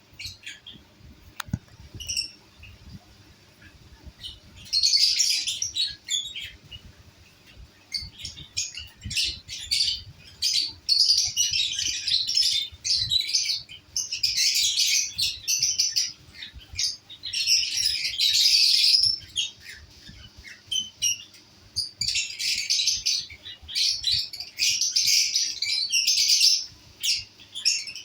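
Lovebirds chattering and screeching in bouts of harsh, rapid calls, quieter for the first few seconds and then loud, with short pauses between bursts.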